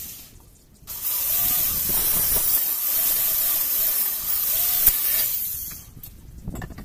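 Corded electric drill running as its bit bores into square metal tubing: a steady, hissy, high-pitched noise that starts about a second in and stops shortly before the end.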